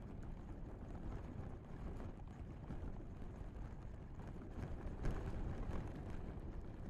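Wind-blown grass stems heard through a contact microphone: a low, rumbling rustle with fine crackles, swelling in a stronger gust about five seconds in.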